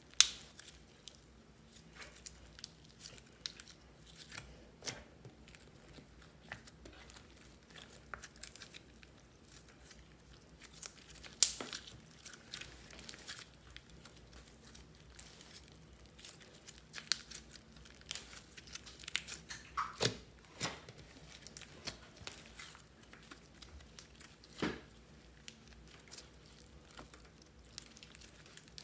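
Hands squeezing, stretching and pulling apart sticky white slime with crushed lipstick pieces mixed in: irregular wet crackles, small pops and tearing sounds, with a few sharper pops standing out.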